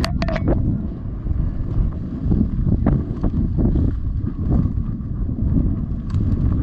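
Wind buffeting the microphone, a loud steady low rumble, with a few faint rustles and knocks over it.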